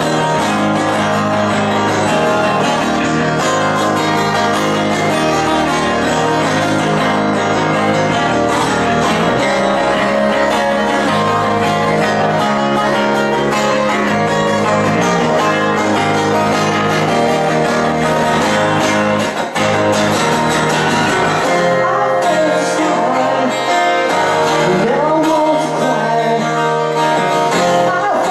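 Several acoustic guitars strummed and picked together in a live band performance, with a voice singing over them in the later part.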